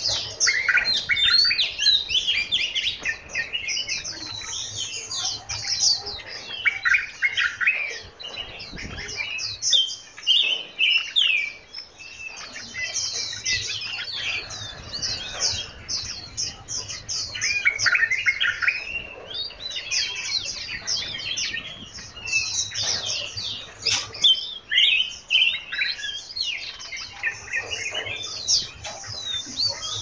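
Several small songbirds chirping and twittering together: a dense, overlapping chorus of quick high notes that comes in bursts with short lulls.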